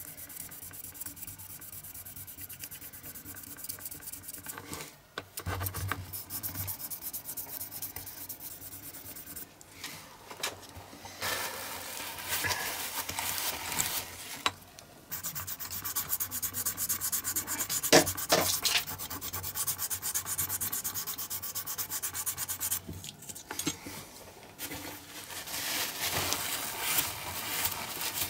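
Rubbing and sanding on the bare metal body of a Lesney Matchbox diecast toy car, in spells of quick scratchy back-and-forth strokes with short pauses between them, and one sharper knock about two-thirds of the way through.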